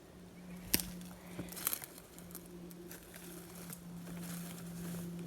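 Footsteps pushing through dense brush, twigs and dry leaves crackling and snapping underfoot, with one sharp snap just under a second in and a quick cluster of crackles soon after.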